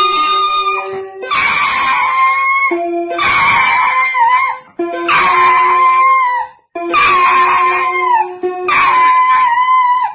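A dog howling in a run of long, wavering howls, about five of them, each dropping in pitch at its end, with music playing underneath.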